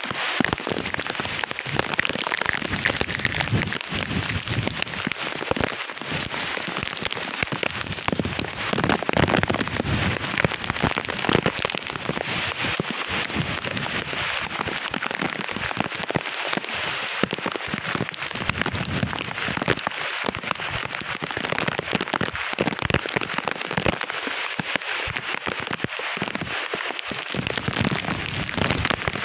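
Typhoon wind and heavy rain, the wind gusting through trees and crops and coming and going in uneven surges over a steady hiss of rain.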